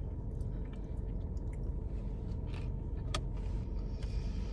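Steady low rumble inside a car cabin, with chewing and a few short clicks from eating, the sharpest about three seconds in.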